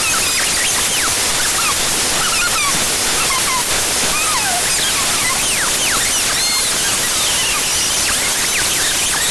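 A computer file's raw data played back as audio by Binary Waterfall: a loud, steady hiss of static with many short squeaky chirps sliding up and down through it, like a bunch of mouse squeaking.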